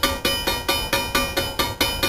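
Railroad grade-crossing warning bell ringing in quick, even strikes, about four and a half a second: the crossing signal warning of an approaching train.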